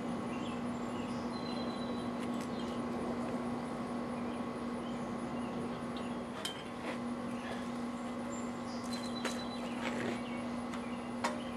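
A few faint metallic clicks and clinks of a safety strap's buckle being handled, over a steady low hum.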